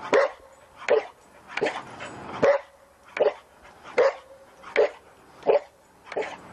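A dog barking over and over in an even rhythm, about nine barks, one roughly every three-quarters of a second.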